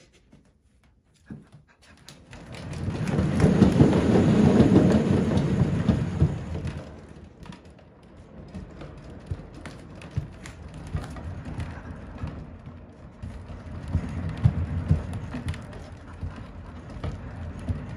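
A cat exercise wheel with a carpeted track turning as a cat runs in it, making a rolling rumble. The rumble starts about two seconds in and is loudest for the next few seconds, then goes on more quietly with irregular small knocks.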